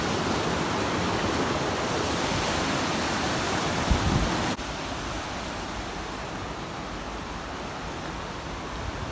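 Steady rush of water from a small waterfall, with a brief low bump about four seconds in; the rush drops abruptly to a quieter level about halfway through.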